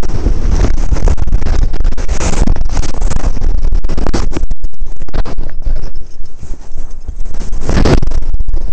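Loud scraping and rubbing right on the microphone of a body-worn camera as a climber moves against granite. The sound cuts out briefly several times.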